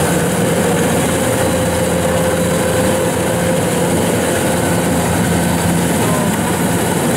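Kubota DC115plus combine harvester running steadily at close range as it cuts and threshes rice, its engine and threshing machinery making a constant, even drone.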